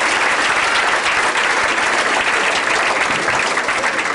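Comedy club audience applauding steadily, welcoming a comedian to the stage.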